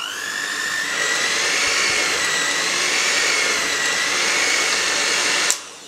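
Electric hand mixer with spiral dough hooks kneading thick yeast dough in a glass bowl: the motor whine rises as it comes up to speed, runs steadily with a slight waver in pitch, and cuts off suddenly near the end.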